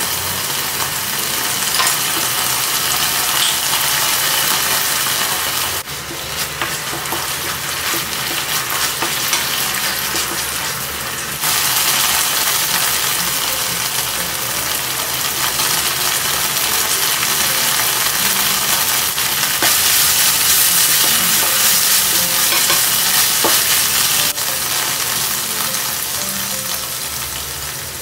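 Minced pork in curry paste sizzling in a frying pan as it is stirred with a wooden spoon, a steady frying hiss that jumps in loudness a few times.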